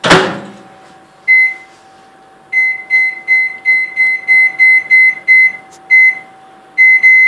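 Microwave oven door shut with a single thud, then the keypad beeping in quick, unevenly spaced short beeps, about three a second, as the cooking time is keyed in, over a faint steady hum.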